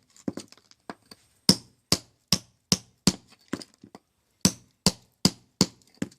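Repeated sharp strikes of a mason's hand tool on hard material, about two or three blows a second, with weaker taps at first and a short pause about four seconds in.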